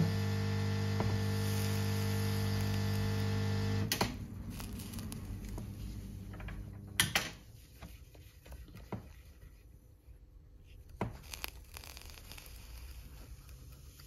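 Steady electrical mains hum that cuts off suddenly with a click about four seconds in. After it, faint rubbing of a cotton swab scrubbing a circuit board, with a few light clicks.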